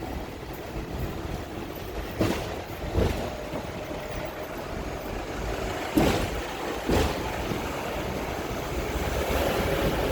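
Hong Kong double-decker tram running along its rails: a steady low rumble with sharp clacks in two pairs, about a second apart, as the wheels cross rail joints.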